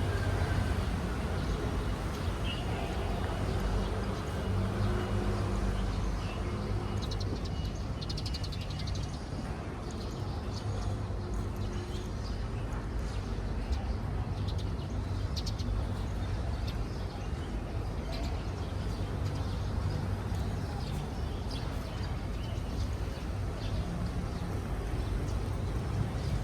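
Small birds giving short, scattered high chirps over a steady low rumble.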